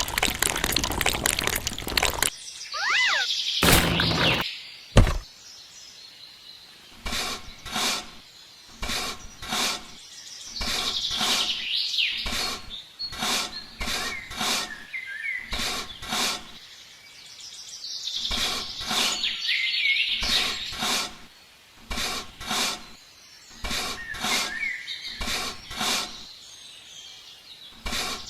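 Small birds chirping in short bursts, over a run of irregular sharp knocks or taps. A dense rough noise fills the first two seconds before stopping suddenly.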